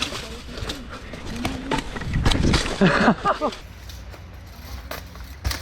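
Mountain bike rolling on its bare rear rim with no tyre, the metal rim rattling and knocking over the ground in a string of sharp clicks and scrapes, loudest about two to three seconds in. A short shout comes in about three seconds in.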